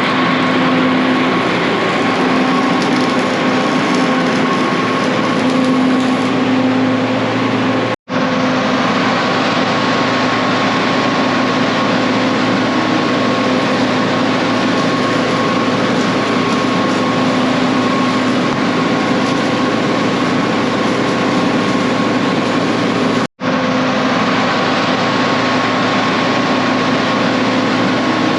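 An engine of farm machinery running steadily at a constant pitch, heard close. The sound cuts out abruptly twice, about a third of the way in and again near the end.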